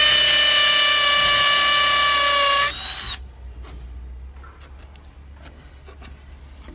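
Dong Cheng hammer drill running at full speed with a steady high whine, its bit boring into brick, then winding down and stopping about three seconds in.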